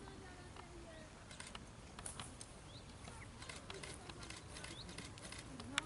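Faint hoofbeats of a horse trotting on a sand dressage arena, irregular soft clicks, with a few short bird chirps and one sharper click near the end.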